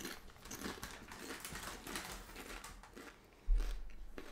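Chewing of a spicy Doritos tortilla chip close to the microphone: soft, irregular crunches and mouth sounds from chips that are not very crunchy. A low thump comes about three and a half seconds in.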